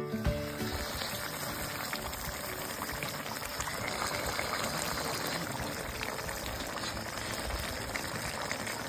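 Pork and bamboo shoots boiling in a pot of liquid, a steady bubbling.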